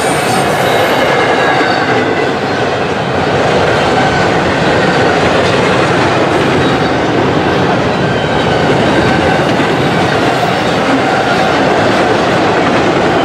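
CSX freight train rolling past: a steady, loud rumble of wheels on the rails, with faint high squeals from the wheels.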